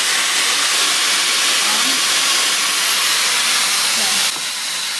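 Bondi Boost Air Styler running with its curling barrel attached: a loud, steady rush of blown air that drops a little in level about four seconds in.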